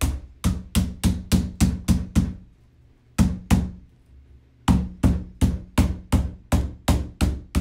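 Rubber mallet striking a plastic cage panel in quick runs of blows, about three a second, driving the interlocking pegs into their holes. The runs break off twice briefly, about two seconds in and again around four seconds in.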